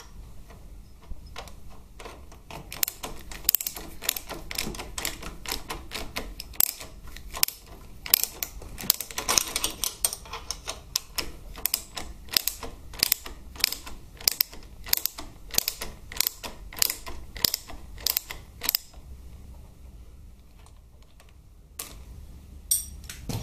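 A socket ratchet clicking in quick repeated strokes as the bolts of a Harley-Davidson Twin Cam 88's head steady bracket are run in. It stops a few seconds before the end, with a few more clicks near the end.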